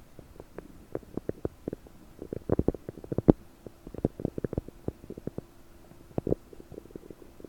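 Bloated human stomach and intestines gurgling in rapid runs of short, bubbly pops, with the loudest pop about three seconds in. This is gas moving through a gut full of prunes.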